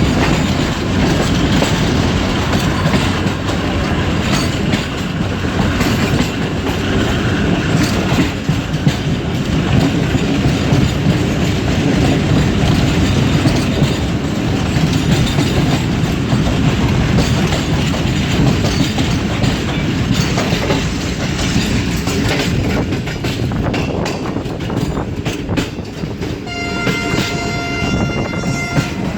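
Express passenger train running over the track, its wheels clattering over rail joints and points with a steady heavy rumble. A train horn sounds one long, steady blast near the end.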